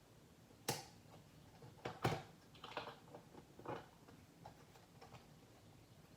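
A few irregular sharp clicks and knocks from test gear being handled on the bench, the loudest a pair about two seconds in, followed by softer taps.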